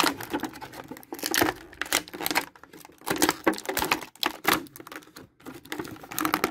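Clear plastic blister tray and plastic sleeve crinkling and crackling as hands pull an action figure out of its packaging, in irregular bursts with short pauses.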